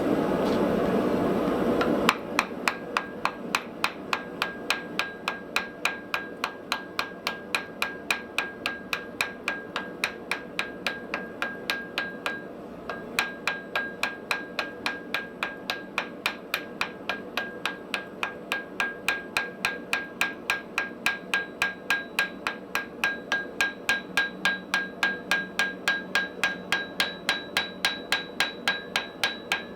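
A hammer striking metal on an anvil in a steady run of about three blows a second, each leaving a faint ring, with a short pause about twelve seconds in. For the first two seconds a louder steady rushing noise comes before the hammering.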